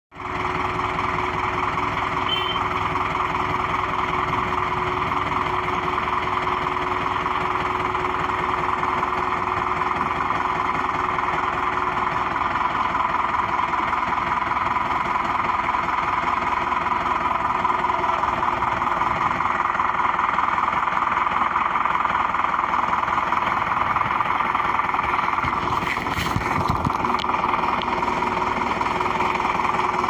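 Concrete transit mixer truck standing with its diesel engine idling, a steady, unchanging mechanical hum.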